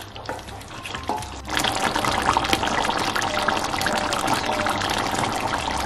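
Sesame and papaya chicken curry simmering in a steel kadai: a steady crackling bubble and sizzle of thick gravy with its oil risen to the surface, setting in about a second and a half in after a few soft scrapes of a wooden spatula.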